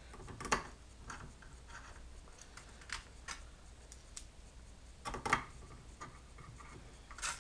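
Small metal screws and an Allen key clicking and tapping as screws are started by hand through a stepper motor into its mounting plate: scattered light clicks, with the loudest cluster a little after five seconds in.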